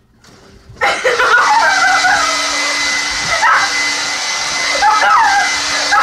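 Handheld hair dryer switched on about a second in and blowing steadily, with a person's whining, wavering voice rising and falling over it at times.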